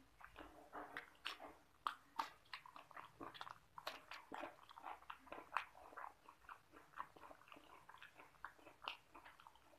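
Close-up mouth sounds of a person chewing rice and egg curry, with irregular wet smacks and clicks.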